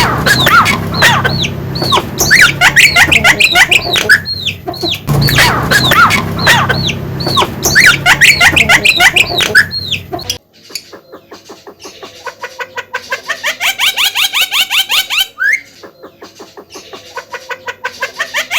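Javan myna singing loudly: a dense, fast stream of whistled and chattering notes. About ten seconds in it switches abruptly to long runs of rapid repeated notes that climb in pitch.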